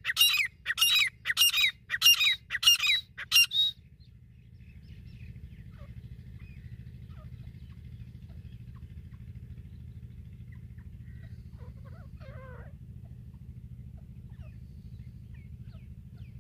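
Female grey francolin (desi teetar) calling, a rapid series of loud, sharp calls about two a second that stops about four seconds in. After that only a faint low hum remains.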